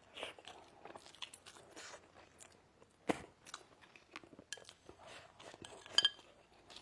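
A person chewing and biting food close to the microphone, with irregular crunching and a couple of sharper cracks about halfway and near the end.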